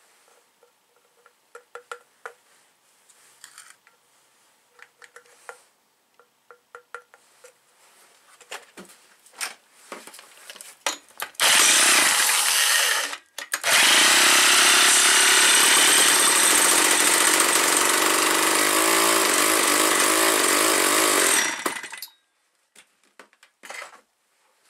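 Old McCulloch 250 two-stroke chainsaw, unstarted for 16 years, being spun over with an electric drill in place of its broken starter: a short loud burst, a brief stop, then about eight seconds of loud running before it cuts off suddenly. Light clicks and rattles of handling come before it.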